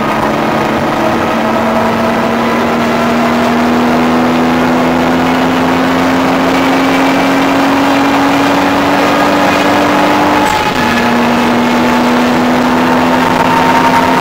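Toyota Supra's turbocharged straight-six under load, heard from inside the car: the revs climb slowly through a long gear, drop suddenly at an upshift about ten seconds in, then pull again, over a steady rush of noise.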